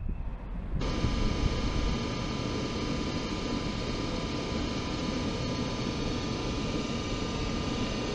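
DB Class 101 electric locomotive running beside the platform, its electrical equipment and cooling blowers giving a steady whine with several fixed tones over a dense rumble. The sound starts abruptly just under a second in, after a moment of quieter platform background.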